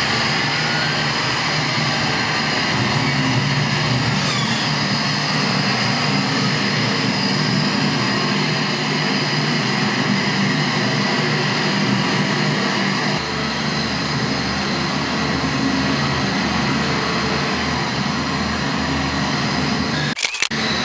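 Steady loud mechanical drone with a constant hiss, its low end growing heavier about two-thirds of the way in, and a brief crackle near the end.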